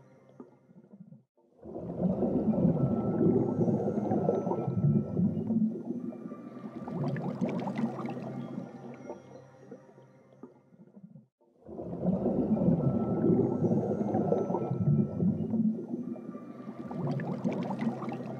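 Soundtrack of an animated breathing-exercise video: a low underwater-style ambient sound that swells and fades in a cycle of about ten seconds, pacing a breath in and a breath out. It dies away almost to nothing about a second in and again about eleven seconds in, then swells up again.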